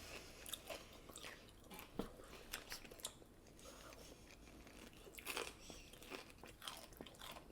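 Quiet close-up eating sounds: chewing and biting with scattered small crunches and mouth clicks, a couple of them louder about two seconds in and again past five seconds.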